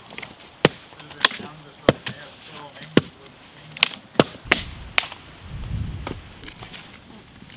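Wood striking wood as dead branches are broken up for firewood: about nine sharp, irregularly spaced knocks and cracks.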